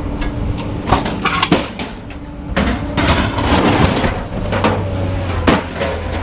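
Scrap metal being handled: several sharp clanks and knocks, with a stretch of rattling and scraping in the middle as pieces are dragged and shifted. A vehicle engine hums steadily underneath.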